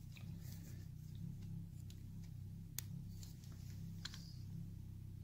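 A few light, sharp metallic clicks, spaced more than a second apart, as pliers work on a motorcycle alternator stator, over a steady low hum.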